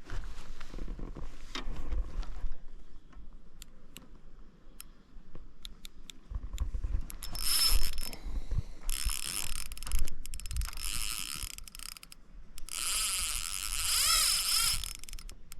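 Fishing reel's drag buzzing in several long runs as a hooked fish pulls line off the spool, with handling knocks and rumble in the first few seconds.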